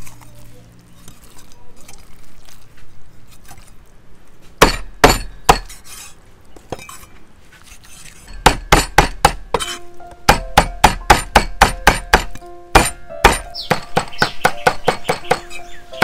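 Blade chopping on a wooden board, each stroke a sharp knock with a dull thud: two strokes about four and a half seconds in, then a quick steady run of strokes, about three to four a second, lasting some five seconds.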